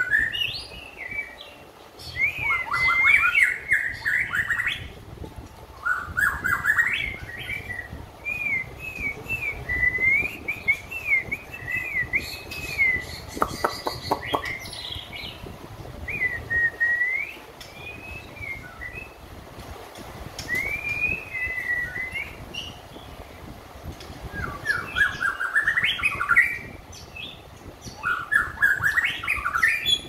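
White-rumped shama singing, a bird fresh out of a complete moult and coming into song form: phrases of quick, varied whistled notes that glide up and down, with short pauses between phrases. A few short clicks come about halfway through.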